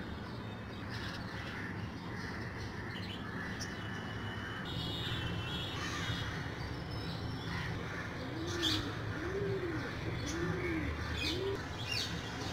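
Birds calling: a dove coos four times in a row, each coo rising and falling, in the last few seconds, over short high chirps of small birds and a steady low hum.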